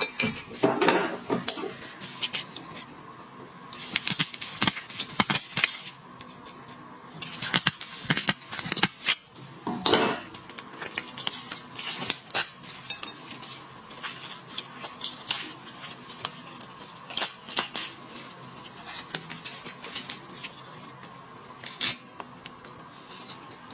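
Irregular crunchy cracks and clicks of lobster and shrimp shells being broken and picked apart, in clusters with short pauses, over a faint steady hum.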